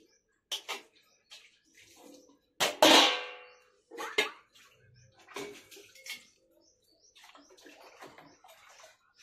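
Pug lapping and slurping milk-soaked food from a plastic bowl: irregular short wet, sloshy bursts, with one louder, sharper sound about three seconds in.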